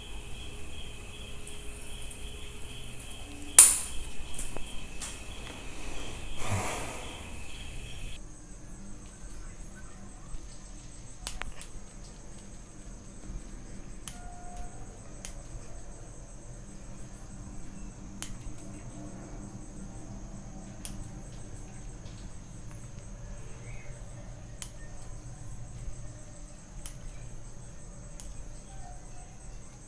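Bonsai scissors snipping twigs and leaves off a small tree: sharp single clicks, a loud snip about three and a half seconds in, a leafy rustle a few seconds later, then steady snips about once every second or so. Behind them runs a steady high insect chirring.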